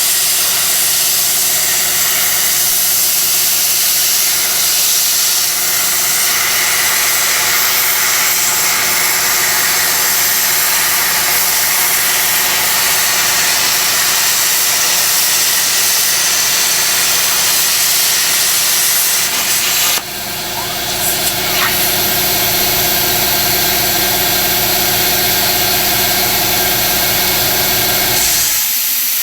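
Plasma cutter on a CNC table cutting steel: a loud, steady hiss with a low buzzing hum under it. About two-thirds of the way through it cuts out suddenly and starts again, and just before the end the low hum stops, leaving only the hiss of air.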